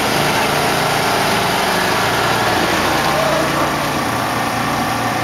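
Small engines running steadily at low speed, from a motor scooter and the camera vehicle that tracks it, with voices talking underneath.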